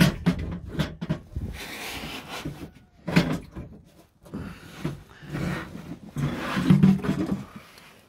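Dehumidifier's plastic water tank being pulled out and handled: a string of irregular knocks and clicks with scraping and rustling between them.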